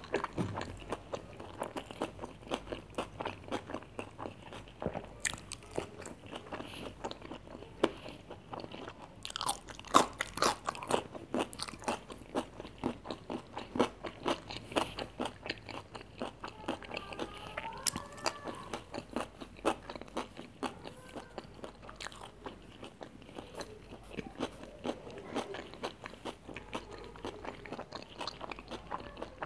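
Close-miked chewing of crispy fried food, with steady crunching and many small crackles and mouth sounds, and a cluster of louder crunches about ten seconds in.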